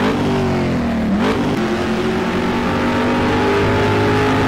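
Car engine revving sound effect: the engine note climbs, sags a little, then jumps up again with a quick whoosh about a second in and holds a high, nearly steady pitch.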